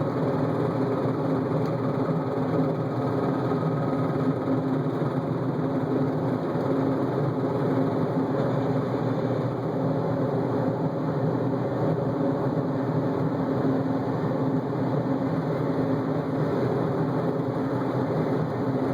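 Toyota Celica GT-S's 2ZZ-GE 1.8-litre four-cylinder engine running at a steady pitch, with no revving.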